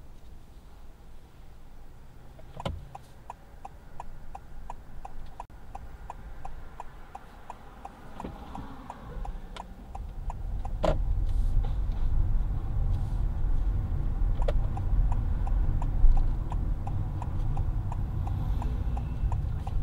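A car's left turn indicator ticking steadily, starting just after a louder click about three seconds in. Engine and tyre rumble grows from about ten seconds in as the car gathers speed.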